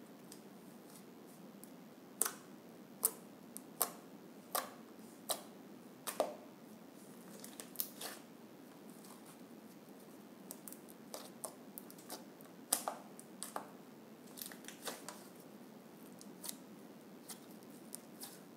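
Pink Pantene-shampoo slime being squeezed, folded and stretched by hand, giving off irregular sharp clicks and pops as air pockets burst. The clicks are louder and about a second apart at first, then smaller and more scattered later on.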